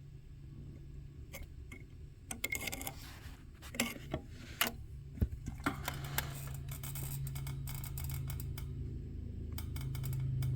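Scattered light clicks and taps, thickest in the middle, over a steady low hum.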